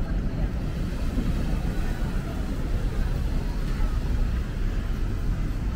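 City street traffic: cars and a bus running past on a wet road, heard as a steady low rumble with no single sharp event.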